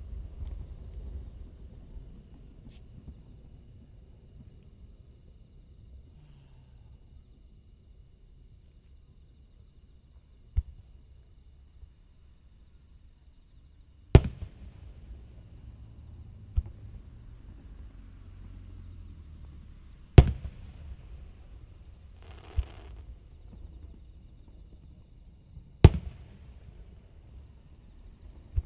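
Aerial firework shells bursting far off, heard from about 800 m away: several sharp single bangs, the three loudest about six seconds apart. Under them, insects trill steadily at a high pitch.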